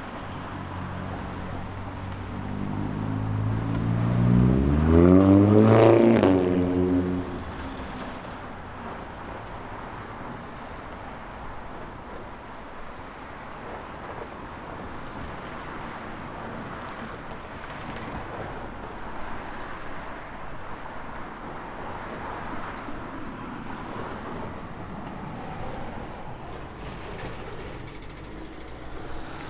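A vehicle's motor rising steadily in pitch and growing loud, peaking about six seconds in and breaking off a second later. It is followed by steady outdoor traffic-type background noise.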